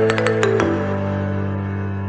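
Background music: sustained synth chords with light percussive ticks, the chord changing about half a second in.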